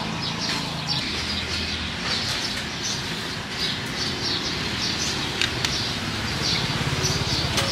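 Small birds chirping repeatedly in short high calls over a steady background din with a low hum.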